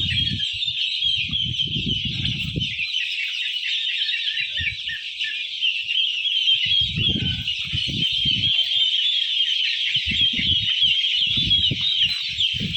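A crowd of young poultry chicks peeping together in a dense, continuous high chorus of overlapping chirps. Irregular low rumbles come and go underneath.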